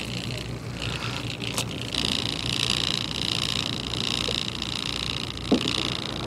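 Fishing boat's engine running steadily, a low hum under a high steady whine that grows stronger about two seconds in. A sharp click about a second and a half in and a short knock near the end.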